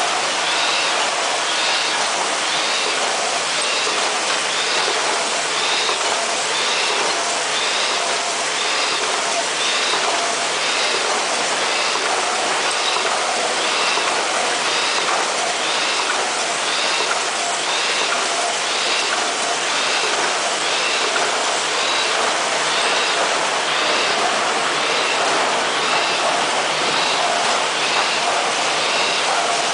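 Automatic flute laminator running at full production: a steady mechanical clatter of rollers and conveyors with a regular beat a little faster than once a second.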